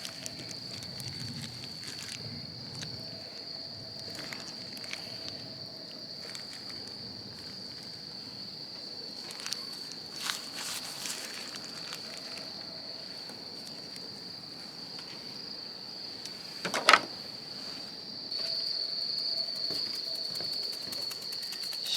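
Insects chirring outdoors in a steady high-pitched drone, with a few light clicks and one sharp knock about seventeen seconds in.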